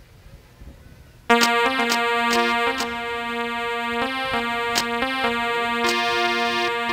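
Electronic keyboard starting suddenly about a second in and playing long held notes, with the pitch shifting a few times, in a musical interlude. A few sharp knocks sound over it.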